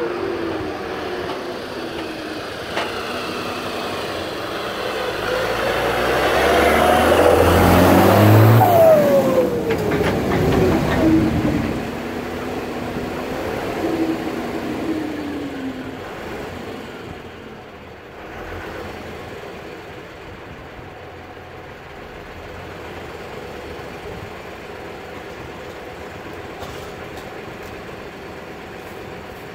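Steyr 8130 tractor's diesel engine, fitted with a P-type injection pump, driven past at speed: it runs hard as it approaches and is loudest about eight seconds in. Its note drops as it goes by, then fades away.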